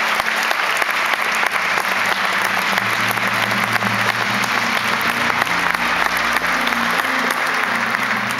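Large audience applauding, a dense steady clapping, with music playing underneath.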